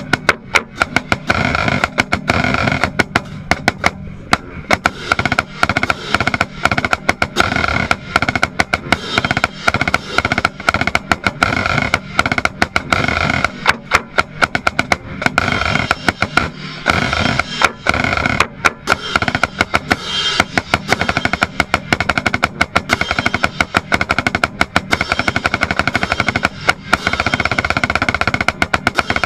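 Marching snare drum played close up, dense rapid strokes and rolls, with the rest of the marching band playing sustained chords behind it.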